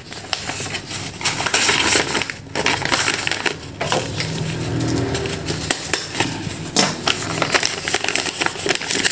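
Brown paper food wrapper crinkling and rustling as it is pushed into a pot of fried rice, filled and folded.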